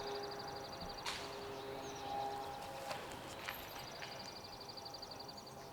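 An animal's rapid high trill, heard twice, the second time for over a second near the end, over faint outdoor background, with a few sharp clicks in between.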